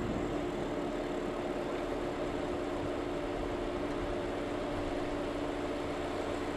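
A car driving steadily, its engine giving a constant drone over a wash of road noise.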